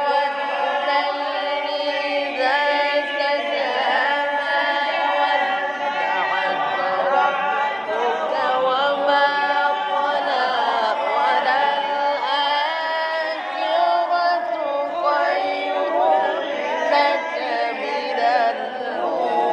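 Solo male Quran recitation (tilawat) in maqam Rast: one voice chanting long, melismatic Arabic phrases, holding and ornamenting notes, with brief breaths between phrases.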